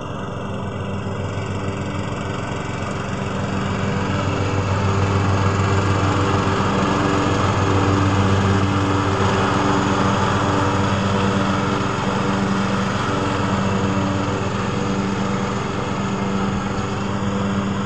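Husqvarna TC 114 ride-on lawn tractor with its single-cylinder 452 cc petrol engine, running steadily as it drives across the lawn. It grows louder as it comes close about halfway through, then eases off slightly as it moves away.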